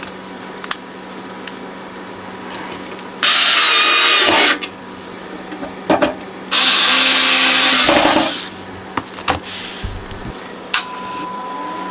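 Cordless drill-driver running in two bursts of about a second and a half each, driving in the screws of an amplifier's lid, with a few short clicks between them.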